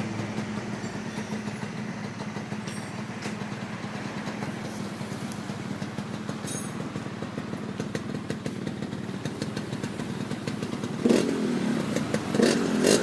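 Yamaha RX-King's two-stroke single-cylinder engine idling with a fast, even crackle, then blipped twice near the end, the revs jumping up and falling back each time.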